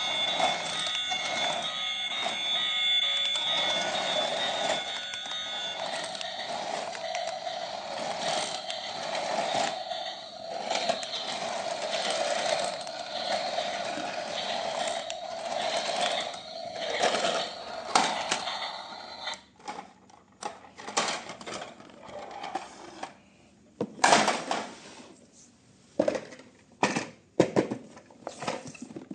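An electric toy running with a steady whir, which stops about two-thirds of the way through. Scattered clicks and knocks follow, from the toy being handled.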